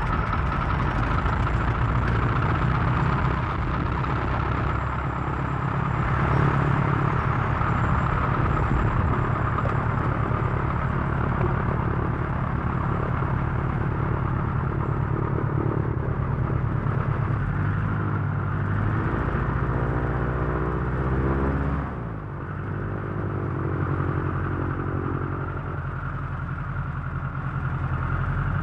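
Single-propeller airplane engine running just after starting, heard from outside the aircraft. About twenty seconds in, its speed shifts and the sound dips briefly, then builds again.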